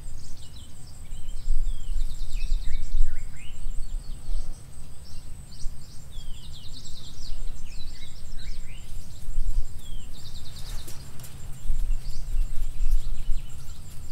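Birds chirping and trilling over and over, in short sweeping calls, over a low rumble and a steady high-pitched whine.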